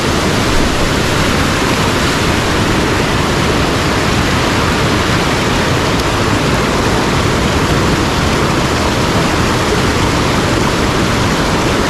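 Steady rush of a mountain headwater stream, fast water running over rocks as one loud, even noise that does not change.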